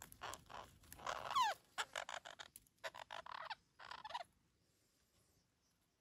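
Parakeets squawking: a run of harsh, screechy calls, the loudest about a second and a half in with a falling pitch, stopping after about four seconds.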